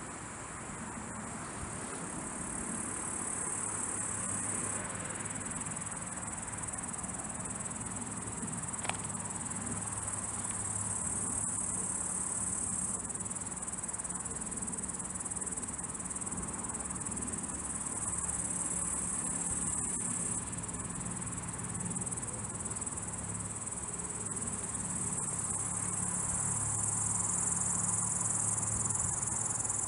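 Crickets chirping in a steady, continuous high-pitched chorus, with a low steady hum underneath and a single faint click about nine seconds in.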